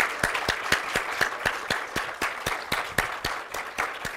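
Audience applauding: many hands clapping together, with a few claps close by standing out about four times a second.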